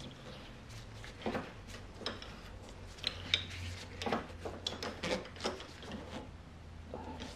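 Irregular small metallic clicks and rubbing as a hand tool turns the damper rod guide, threading it into a 2014 Suzuki GSX-R750 front fork tube, with the clicks coming thickest in the middle.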